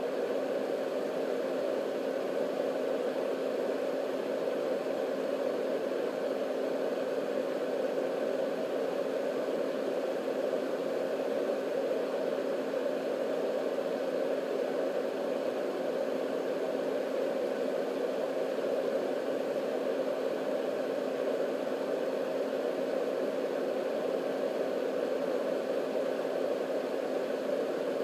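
Marpac Sound Screen 980A white noise machine running: its two-speed fan motor gives a steady, even rushing noise, dull and low-pitched rather than hissy, with a faint steady hum beneath it.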